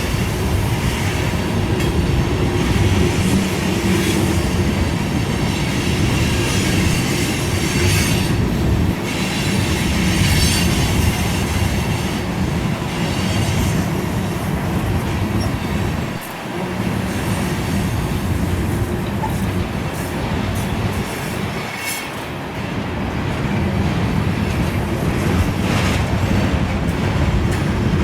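Freight cars of a Union Pacific mixed freight train rolling past, wheels clacking over rail joints, with stretches of high-pitched wheel squeal.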